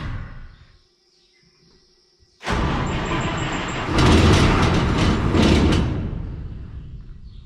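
Combine engine being cranked over by its starter, with a row of high warning beeps; the sound swells, then fades away as the engine almost catches and dies. The owner blames weak batteries and fuel drained back.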